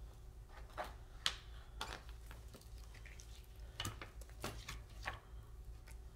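Scissors snipping into the packaging of a pack of vinyl sheets: several short, sharp snips at uneven intervals.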